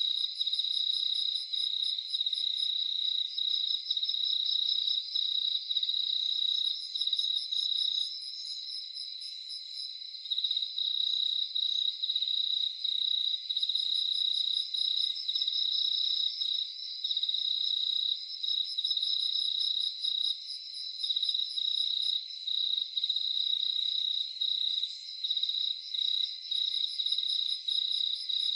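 Night chorus of crickets: a steady, high trill that drops out briefly now and then, with a second, higher-pitched insect trilling in short bursts every few seconds.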